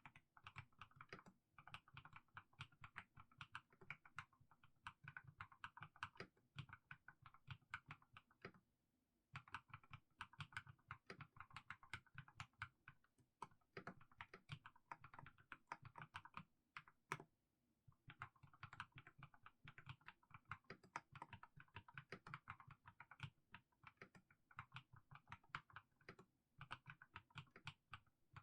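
Mechanical keyboard with fully lubricated Haimu Sea Salt switches being typed on at an unhurried pace, a steady run of soft keystroke clacks. The typing breaks off briefly about nine seconds in and again near eighteen seconds.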